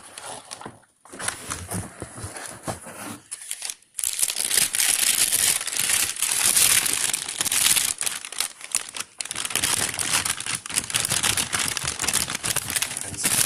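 Packaging wrap being crinkled and torn off a box by hand. It starts as light, scattered rustling, and about four seconds in turns into loud, continuous crinkling that breaks off briefly near nine seconds.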